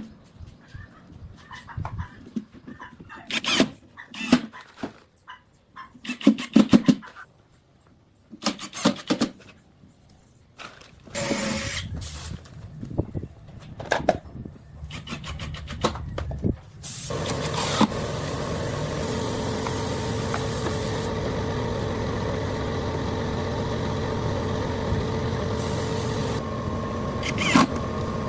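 A string of separate knocks and taps, then about two-thirds of the way in a machine starts and runs steadily with a constant hum.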